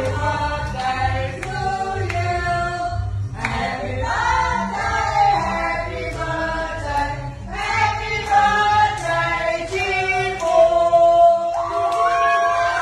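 Several voices singing together over a steady low beat.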